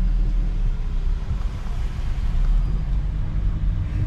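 Converted truck camper driving, heard from inside the cab: a steady low engine and road rumble.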